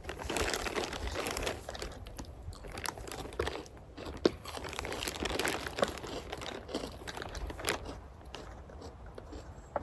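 Irregular close crunching and crinkling rustles with scattered sharp clicks, the sharpest about four seconds in.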